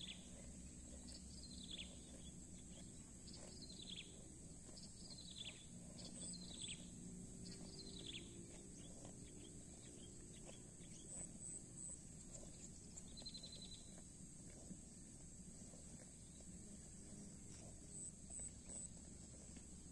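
Faint rural ambience: insects buzzing steadily at a high pitch, with a bird repeating a falling call about every one and a half to two seconds through the first half, and a few short high chirps later.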